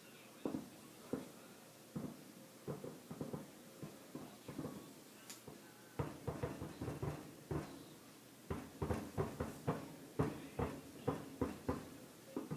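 Fireworks exploding at a distance, heard from indoors as a string of dull, irregular bangs that come thicker from about halfway through.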